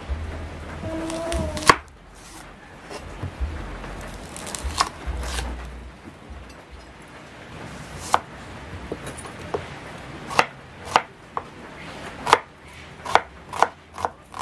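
Kitchen knife slicing a red onion on a wooden cutting board: sharp knocks of the blade striking the board, scattered at first and coming quicker over the last few seconds.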